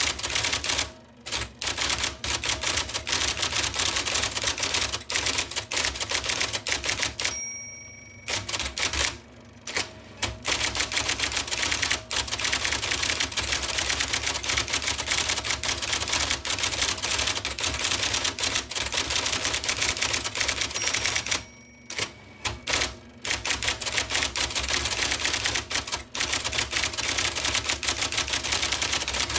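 1979 IBM Selectric II electric typewriter typing fast: a rapid, even rattle of typeball strikes, broken by a few short pauses.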